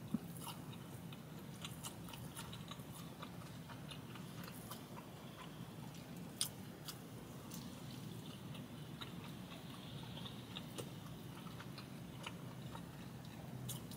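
A person chewing a mouthful of a roast beef slider with onion rings and pickles, close to the microphone: faint, steady chewing with scattered small clicks and crunches, and a sharper click about six seconds in.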